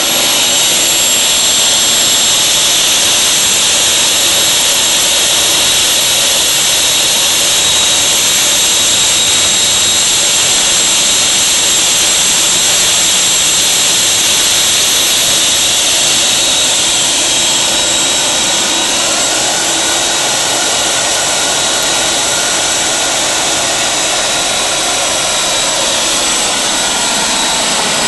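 Homemade turbojet built from a Cummins VT-50 diesel turbocharger running steadily: a loud, even rush of air and exhaust with a high-pitched turbine whine.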